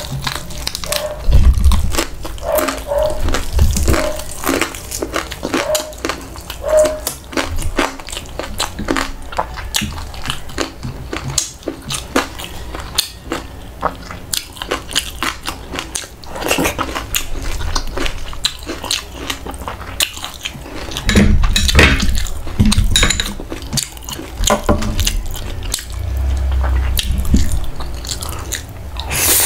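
Crunching bites and chewing of crispy fried pork tail, with many sharp crackles, wet mouth sounds and a few low thumps.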